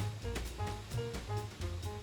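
Instrumental background music: a low bass line, short melodic notes and regular drum-kit beats.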